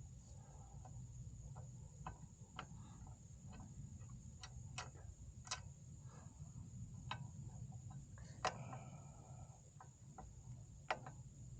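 Faint, irregular clicks and taps of small hand tools on metal while a bolt is worked loose, a few strikes sharper than the rest.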